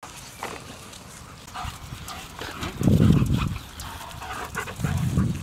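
German Shepherd puppies yapping and yelping in short, scattered calls as they play, with a louder low rumble about three seconds in.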